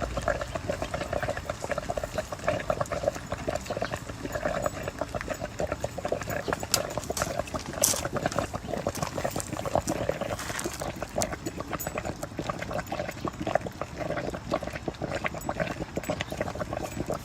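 Coolant bubbling and gurgling in an overheating car's cooling system, a dense irregular crackle that runs on steadily.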